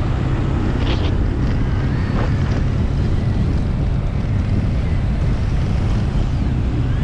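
Wind rushing and buffeting on the microphone of a moving motorcycle, a steady heavy low rumble with the ride's road noise beneath it.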